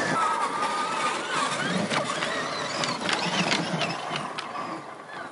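Electric motor and gear drivetrain of a 1:10 scale RC crawler whining, the pitch rising and falling with the throttle, with sharp clicks and knocks as the tyres climb over roots. It fades near the end as the truck drives away.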